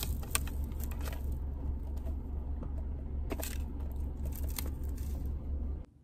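A cordless-style car vacuum cleaner and its cord being handled and stowed, switched off: scattered clicks, scrapes and rustles over a steady low rumble, which stops suddenly near the end.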